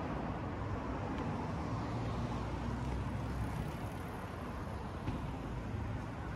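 Steady city street ambience dominated by road traffic noise from cars.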